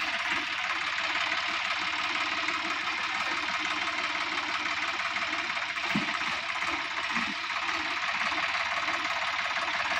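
Sonalika DI-50 RX tractor's diesel engine running steadily at low revs.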